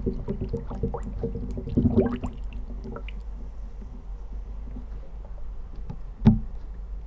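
Cardboard box of a travel-size toothpaste being handled and torn open underwater, heard through a hydrophone. It makes a run of small clicks and crinkles, busiest in the first two seconds or so. Quieter handling follows, then a single sharp knock about six seconds in.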